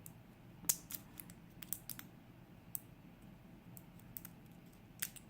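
Small sharp metallic clicks and taps of lock tools working a pin tumbler lock as it is shimmed for removing the plug. About a dozen irregular clicks, the loudest just under a second in and another near the end.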